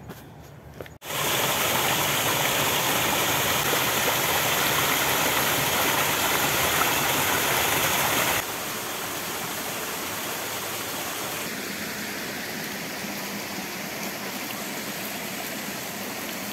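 Rushing water, loud and steady, starting abruptly about a second in; about eight seconds in it cuts to a quieter stretch of flowing water.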